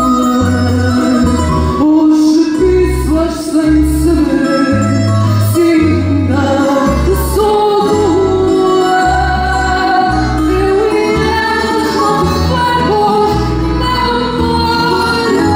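A woman singing a fado live through a microphone, her voice holding and bending long notes, over guitar accompaniment with a plucked bass line.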